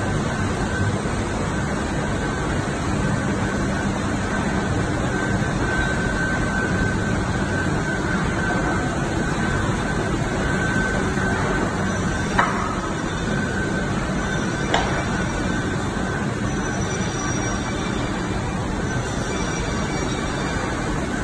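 Steady running noise of a flooring UV coating line: roller coaters, conveyor belts and UV curing units, with a steady high whine over it. Two short sharp clicks come near the middle, about two seconds apart.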